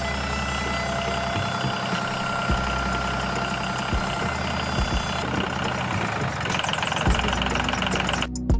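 Small engine of a homemade tractor running steadily, with a few sharp knocks now and then. It cuts off abruptly just before the end.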